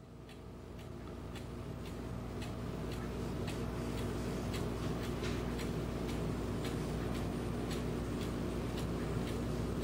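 German cuckoo clock's mechanical movement ticking evenly, about two ticks a second, over a steady low hum; the sound fades in over the first few seconds.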